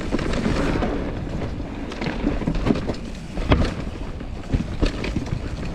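Mountain bike descending a rough trail: tyres rolling over dirt and rocks, with wind on the microphone and repeated sharp knocks and rattles from the bike over bumps, the loudest about three and a half seconds in.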